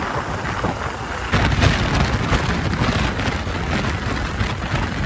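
Riding a motorcycle at road speed: steady wind rush buffeting the microphone over engine and tyre noise, getting louder a little over a second in.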